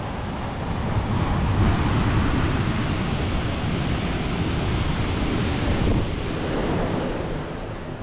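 Ocean surf breaking over a rocky shore, a steady rush with wind buffeting the microphone. It swells about a second in and eases off near the end.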